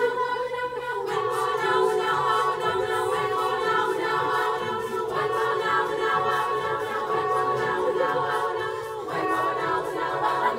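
Mixed-voice choir singing a cappella, holding sustained chords that change about every four seconds.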